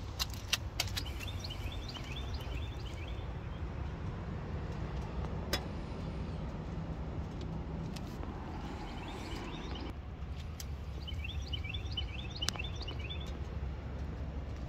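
Birds chirping in two short bursts over a steady low rumble, with a few sharp clicks.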